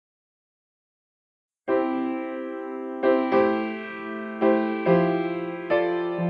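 Silence, then keyboard music starts suddenly about a second and a half in: sustained electric piano chords, restruck every second or so.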